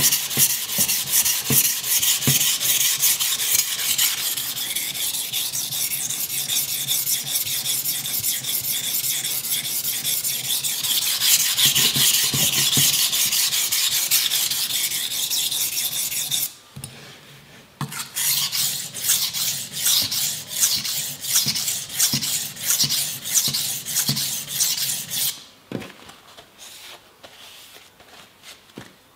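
Soft-steel IKEA kitchen knife being sharpened on a wet synthetic whetstone: rapid back-and-forth rasping strokes of steel on stone, with the stone cutting metal quickly and raising a burr. The strokes pause briefly a little past the middle, resume, and stop a few seconds before the end.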